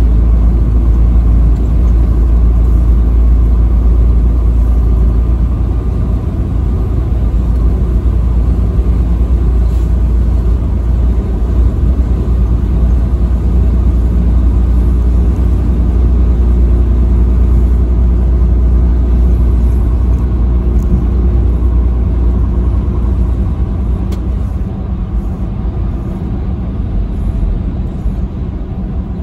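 Steady low rumble of a vehicle's engine and tyres driving at highway speed, with a hum of several steady engine tones; it eases slightly near the end.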